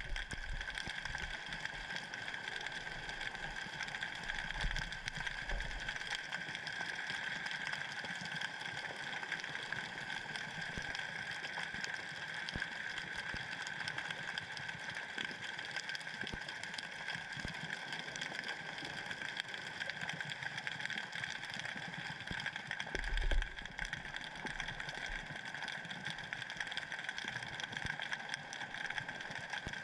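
Underwater sound picked up by a submerged camera: a steady hiss with a constant high whine, broken by a few dull low thumps, the loudest about 23 seconds in.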